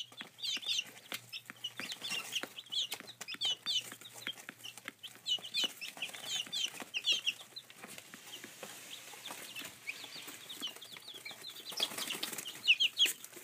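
Four-week-old chicks peeping: many short, high, falling peeps overlapping from several birds, thinning out for a few seconds in the middle, with scattered light taps among them.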